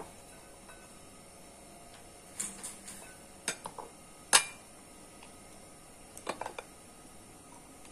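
Kitchen utensils and dishes clinking and knocking in a few short clusters, with the sharpest knock a little over four seconds in.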